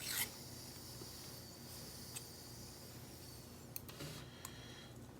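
A short metallic scrape, then a few faint, light clicks as small lock pins and springs are handled while the challenge lock is taken apart.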